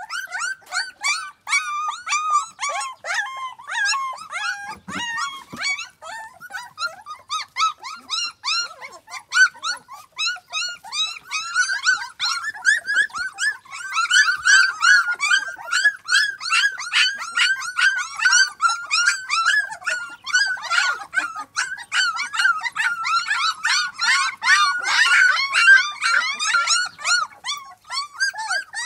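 A litter of young puppies whining and yelping nonstop, many short high cries overlapping one another, getting busier and louder about halfway through.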